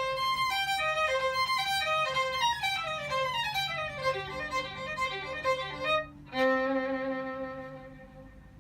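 Violin playing a quick melody of short notes in repeated falling phrases, then one long held note about six seconds in that fades away near the end.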